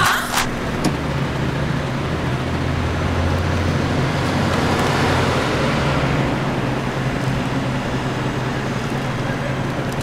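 Steady road and traffic noise with a low engine hum, as heard from inside a moving vehicle, swelling a little midway.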